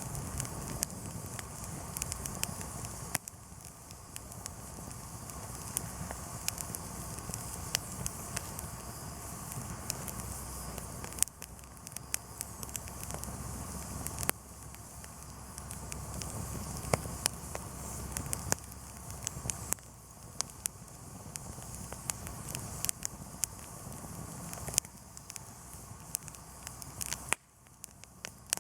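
Wood campfire crackling, with frequent sharp pops and snaps over a low steady rush. The background level steps down abruptly a few times.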